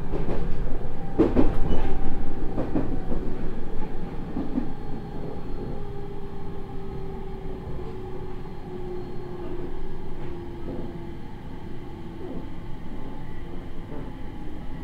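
Inside a JR East 701 series electric motor car (Mitsubishi IGBT-VVVF inverter, MT65 AC traction motors): wheels clack over rail joints in the first few seconds, then the inverter and motor whine falls steadily in pitch as the train slows down.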